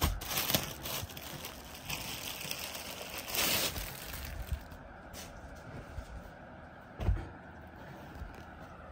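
Rustling and handling of a velvet suit's fabric, with a brief swish about three and a half seconds in and a soft thump about seven seconds in.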